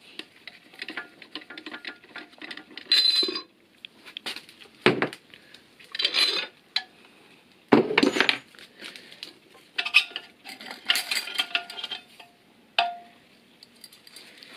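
Metal tools and parts clinking and knocking against an aluminium automatic transmission case as a spring compressor is taken off and the reverse clutch piston return spring is lifted out. There are scattered light clicks and several sharper knocks, some with a brief metallic ring.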